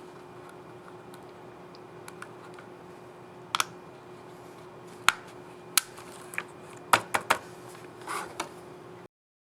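Dell Latitude 7420 laptop keyboard keys clicking: a scattered series of sharp clicks, first a quick pair, then single clicks and a short run of three close together, over a steady low hum. The sound cuts off suddenly about a second before the end.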